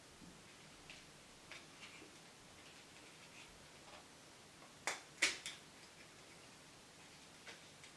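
Small plastic clicks and taps as the housing and gear mechanism of an Air Wick air freshener are handled and worked apart by hand, with two sharper clicks close together about five seconds in.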